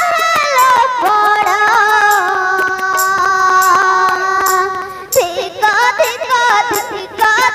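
Female voice singing a stage song to harmonium and drum accompaniment with a steady percussion beat, the melody held on long notes through the middle.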